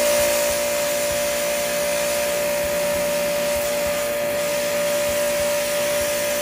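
Electric pressure washer running steadily, its motor giving a steady whine under the hiss of a water jet sprayed through a nozzle wand onto a split aircon's evaporator coil during cleaning.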